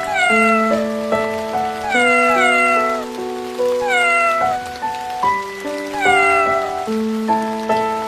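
Kitten meowing: pairs of short, falling meows repeated about every two seconds, over background music with long held notes.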